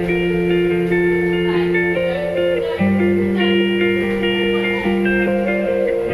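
Instrumental background music, with held notes over a bass line that changes pitch about three seconds in.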